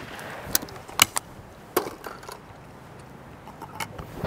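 Sharp metallic clicks and clacks of a Kemen 20-bore over-and-under shotgun being handled after a shot, as the action is broken open and the gun is reloaded. The echo of the shot fades at the start.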